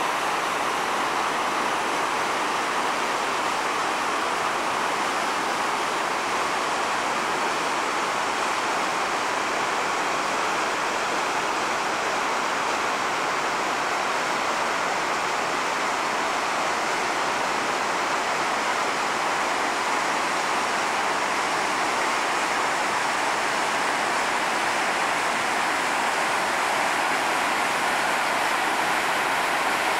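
Shell Falls, a large mountain waterfall running high with spring snowmelt, rushing steadily down a rock gorge as an even roar of falling water.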